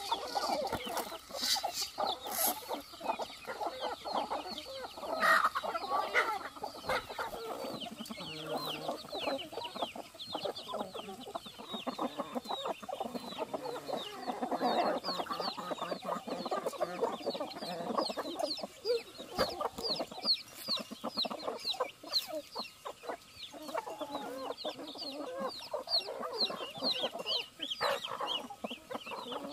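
A flock of free-range chickens clucking as they feed on scattered grain. Through the second half comes a rapid run of many short, high peeps over the clucking.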